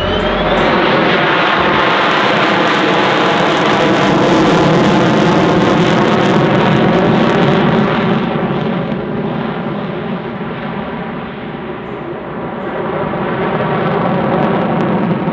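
F-16C Fighting Falcon's Pratt & Whitney F100 turbofan running in afterburner as the jet flies overhead, loud through the first half, easing off about ten seconds in and swelling again near the end.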